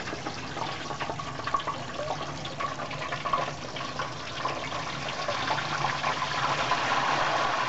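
Hot peanut oil bubbling and crackling hard as a whole raw turkey is lowered slowly into the fryer pot, growing louder over the last couple of seconds as more of the bird goes under.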